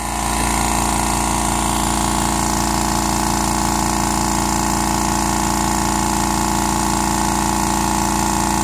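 California Air Tools 2010A 1 hp compressor running steadily as it pumps its 2-gallon aluminum tank up toward 120 psi, an even motor hum with a fast regular pulse.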